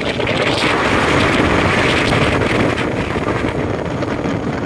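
Motorboat running at speed, its engine and the water noise blending with wind buffeting the microphone in a dense, steady rush.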